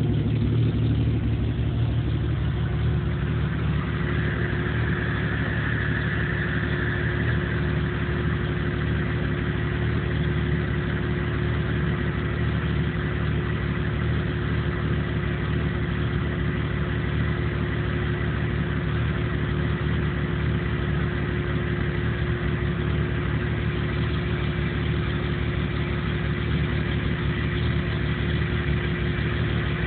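1997 Jeep Cherokee engine idling roughly, steady throughout, with a faint high whine coming in about four seconds in. The owner reports it won't idle right and dies under load, with no trouble codes set.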